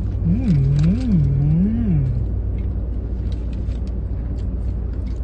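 A car's engine idles with a steady low hum inside the cabin. About a second in, a person hums three rising-and-falling notes with the mouth closed, and light clicks of eating and handling food come and go.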